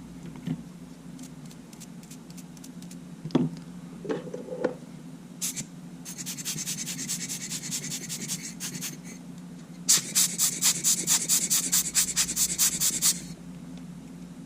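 Quick back-and-forth scrubbing on small camera parts, cleaning sand grit out of the Sony A7's shutter button assembly. A few light clicks come first, then a softer run of scratchy strokes, then a louder run of about six strokes a second for some three seconds, all over a steady low hum.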